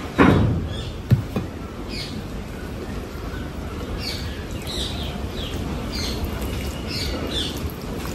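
Close-miked eating sounds as a meal of duck, rice and salad gets under way, with a sharp loud sound just after the start and a click about a second in. From about halfway through, a run of short, high, falling chirps repeats every half second or so.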